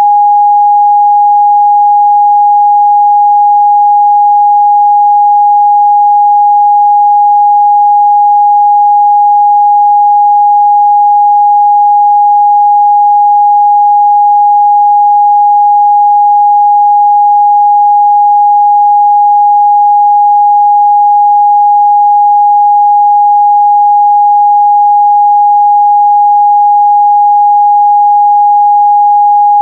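A steady, loud 824 Hz sine-wave test tone, one pure pitch held without change.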